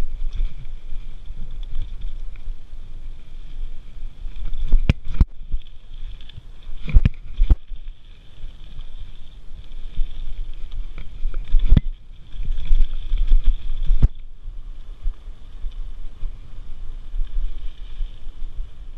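Mountain bike rolling fast over dirt singletrack, heard from a handlebar camera: a steady rumble of wind on the microphone and tyre noise, broken by several sharp knocks and rattles as the bike hits bumps.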